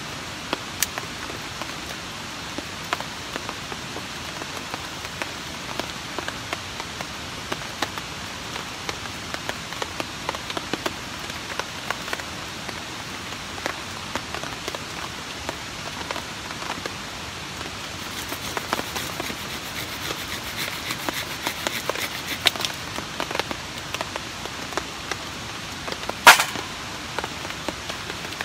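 Steady rain falling on a tarp shelter, with many small drop ticks. A busier run of small clicks comes in the second half, and one loud sharp crack comes near the end.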